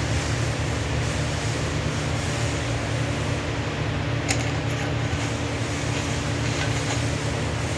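Steady machine hum with an even hiss while 6-inch pipe is TIG welded, with one sharp click about four seconds in.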